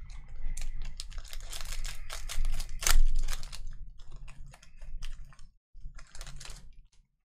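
Panini Prizm basketball card pack's plastic wrapper being torn open and crinkled, a dense irregular crackle that is loudest about three seconds in, then thinning to scattered crinkles with one more brief flurry near the end.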